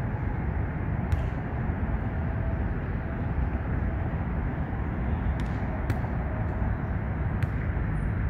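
Steady low rumble of traffic on the elevated roadway overhead, with a few faint ticks.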